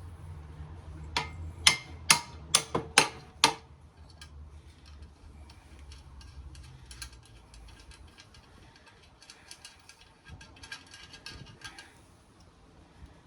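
Metal hand tools clicking and clinking on the radial arm saw's parts during disassembly: six sharp clicks in quick succession about a second in, then a run of lighter ticking clicks near the end.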